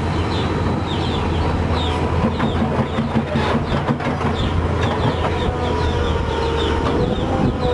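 Volvo excavator's diesel engine running steadily with a steady whine over it, overlaid by many short, high, falling chirps.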